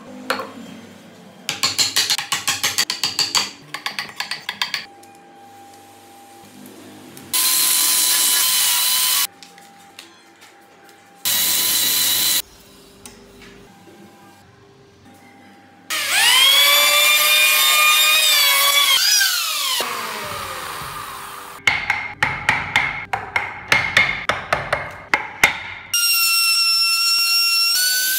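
Woodworking tools on a wooden model car body: two runs of rapid sharp taps, two short bursts of a steady power tool, and a power tool whining up to speed, holding, then falling in pitch as it winds down. Near the end a handheld trim router runs steadily, cutting into the wood.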